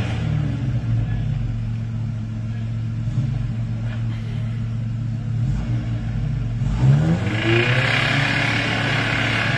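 Toyota crawler's engine running at a steady low speed as the truck crawls through mud ruts, then revving up with a rising pitch about seven seconds in, louder and harsher for the rest.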